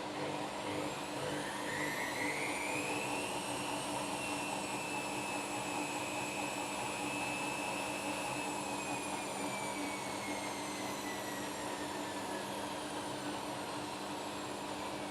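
Washing machine spinning a load of footballs: the motor's whine rises as the drum speeds up, holds steady, then falls as the drum slows after about nine seconds, over a constant hum.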